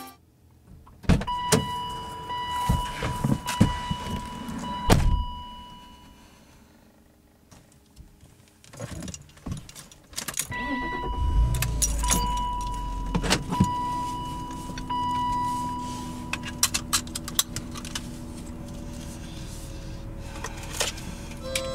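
Car sounds: clicks and knocks with jangling keys and an intermittent chime tone, then from about halfway a low rumble that settles into a steady hum, like an engine starting and running.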